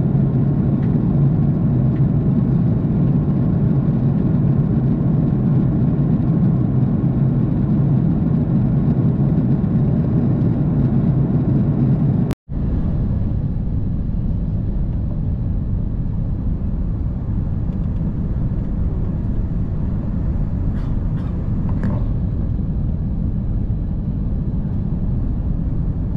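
Steady drone of jet airliner cabin noise, engines and airflow heard from a window seat. It cuts off sharply about halfway and resumes as a slightly quieter drone.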